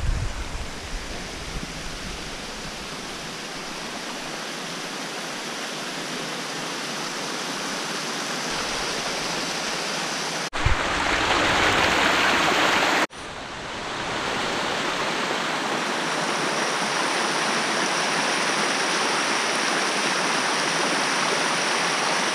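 Water rushing down small cascades of a forest stream, a steady rush that slowly grows over the first ten seconds. About halfway through it jumps louder and closer for a couple of seconds, then drops suddenly and settles back to a steady rush.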